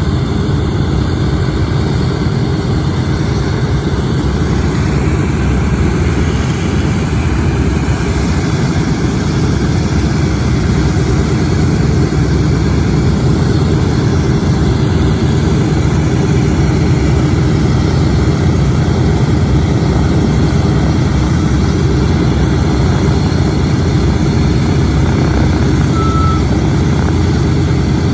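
Four Wright R-1820 Cyclone nine-cylinder radial engines of a Boeing B-17G Flying Fortress running at low taxi power, a loud, steady, deep propeller drone as the bomber taxis.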